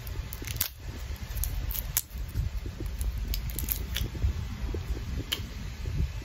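Handling noise close to the microphone: fingers rubbing and tapping, with a plastic lip-colour tube, giving a steady low rumble and a dozen or so scattered sharp clicks.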